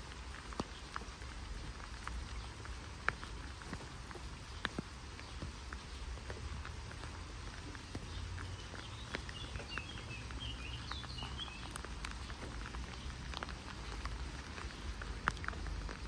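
Light rain pattering, with scattered raindrop ticks close by. A short run of high chirps comes about halfway through.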